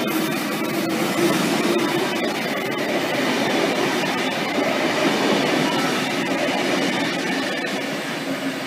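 V set double-deck electric intercity train running past at close range, with the steady rumble of wheels on the rails, light clicking and traction motor noise. It fades near the end as the last car goes by.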